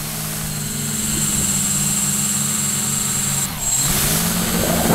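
Quadcopter's electric motors and propellers humming steadily, heard from a camera on board. The pitch drops briefly about three and a half seconds in, then climbs back as a rush of wind noise builds near the end.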